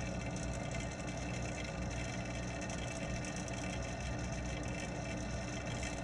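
Steady electric hum of the pond's water pump, heard through an underwater camera, with several fixed tones over a low drone and no change throughout.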